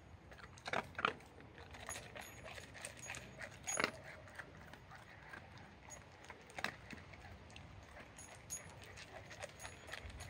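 A dog picking dry kibble up off a concrete floor and crunching it: scattered small clicks and crunches, with a few louder ones spread through.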